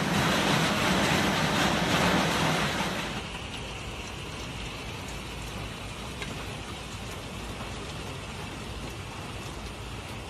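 Heavy rain mixed with marble-sized hail: a dense, loud hiss that drops sharply to quieter steady rain about three seconds in, with a few faint ticks of hailstones.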